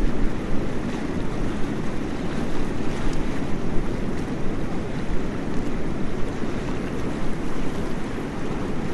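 Waterfall: falling water rushing steadily, a dense, even roar with no breaks.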